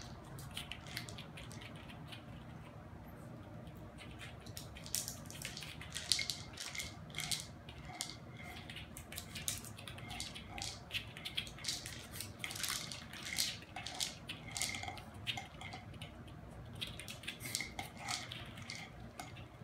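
A plastic treat-dispensing wobbler toy being knocked and rolled about on a hard floor, kibble rattling inside it. The clicks and clatters come irregularly and grow busier after the first few seconds.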